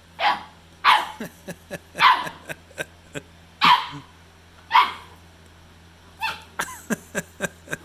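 Pit bull puppy barking: five sharp, high barks, each falling in pitch, spread over about five seconds, then a quicker run of quieter short yips near the end.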